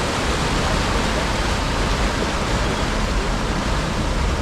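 Steady, loud rush of fast-flowing floodwater across a road during heavy rain.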